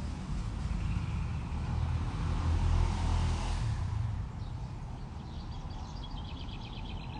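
A vehicle passing: a low rumble swells to its loudest about three seconds in, then fades. Near the end, a bird chirps in quick repeated high notes.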